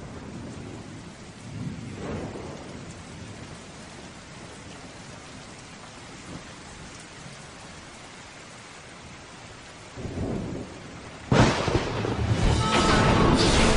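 Steady rain with low thunder rumbles swelling now and then. About eleven seconds in, a sudden loud crack sets off a much louder, sustained rumble.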